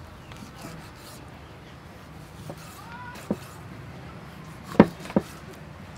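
Cleaver slicing beef kidney on a thick wooden chopping board: the blade knocks sharply against the wood several times in the second half, the loudest two close together near the end.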